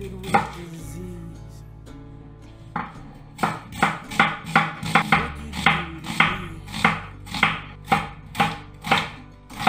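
Kitchen knife dicing an onion on a wooden cutting board: one cut, then from about three seconds in a steady run of chopping strokes, the blade hitting the board about two to three times a second.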